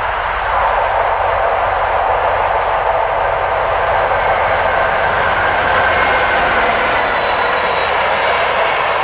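TEP70 passenger diesel locomotive and its train of coaches running past at speed, a loud steady rumble of engine and wheels on rail. Thin high wheel tones come in partway through and slowly fall in pitch.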